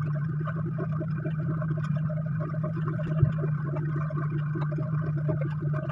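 A running machine's steady low hum with a fast, uneven flutter over it. One sharp click comes about three seconds in.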